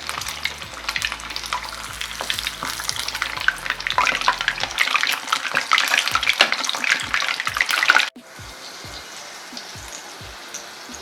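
Cornflake-coated chicken pieces deep-frying in hot oil: a dense, crackling sizzle with many sharp pops. It cuts off suddenly about eight seconds in, leaving a quieter, steadier background.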